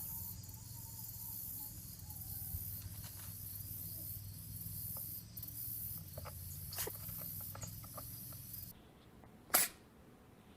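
Kitten sneezing: a few small, short sneezes around the middle, then one sharper, louder sneeze near the end. A steady background hum runs under the first part and drops away shortly before the last sneeze.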